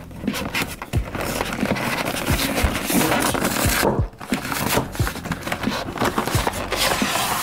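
Rustling and scraping with scattered soft knocks and thumps from the cardboard collector box and its plastic packaging being handled.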